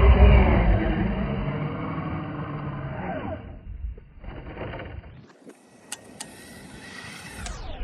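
Electric RC monster truck's motor and drivetrain running through snow, loud at first and fading away over about three seconds as it moves off. A quieter lull follows, then a fainter stretch of driving with two sharp clicks about six seconds in.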